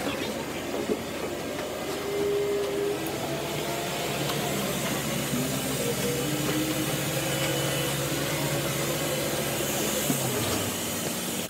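Steady hum and hiss of a parked airliner's air systems at the boarding door, with faint voices of passengers.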